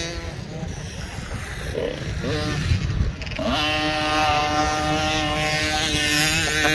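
Small dirt bike engine revving: uneven rises in pitch over the first seconds, then about three and a half seconds in it climbs and holds a steady high-pitched note.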